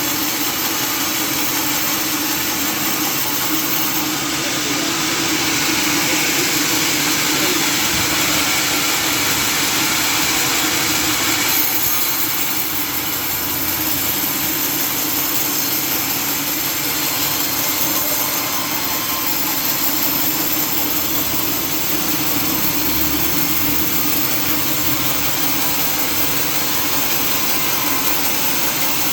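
Sawmill saw and its drive motor running steadily through a mahogany log, a loud continuous hiss over a low hum. The hiss grows brighter for several seconds in the first half, then settles.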